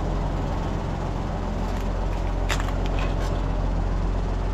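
An engine running steadily, with a few short clicks a little past halfway.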